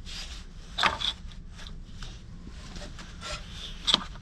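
Fan clutch and plastic engine fan being turned by hand onto the water pump, on a 2008 Ford F250 6.4L Powerstroke diesel. Gloved handling rubs and scrapes, with sharp knocks about a second in and again near the end.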